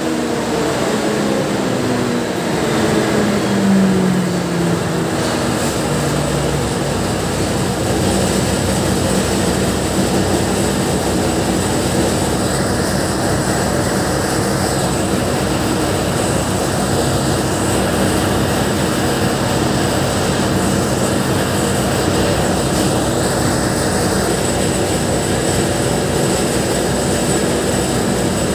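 Powercity diesel generator set running steadily, a loud even engine drone with a faint steady high whine above it.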